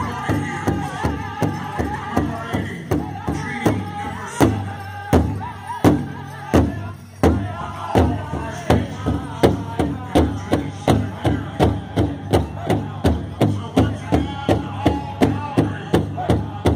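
Pow wow drum and singers: a big drum struck in unison with a high, wavering sung melody. A few heavier, slower beats come a few seconds in, then the drum settles into a steady beat of about two and a half strokes a second.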